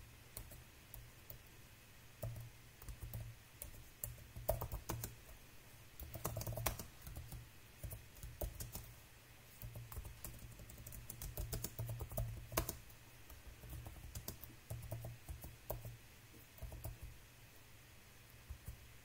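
Typing on a computer keyboard: uneven runs of key clicks with short pauses between words.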